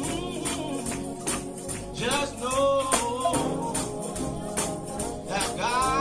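Gospel music: singing over a band, with a tambourine keeping a steady beat.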